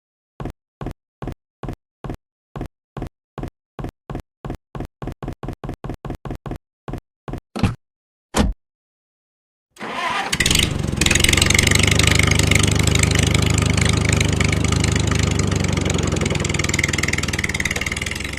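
A run of about twenty short, sharp clicks about a third of a second apart, with dead silence between them. Then, about ten seconds in, a small engine starts and runs steadily at an even speed, fading out at the end.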